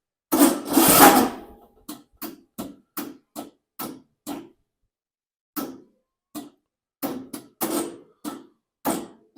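John Deere LA125 riding mower's starter solenoid clicking over and over as the key is turned, while the engine does not crank. It comes in uneven runs of short clicks with a pause partway through, after a louder scraping noise near the start. The clicking points to a weak battery or a faulty solenoid.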